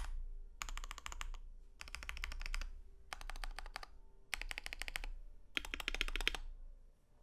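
Typing on a KBD67v2 Lite mechanical keyboard with lubed Gateron Milky Yellow linear switches and PBT keycaps: five quick runs of keystrokes with short pauses between, stopping near the end.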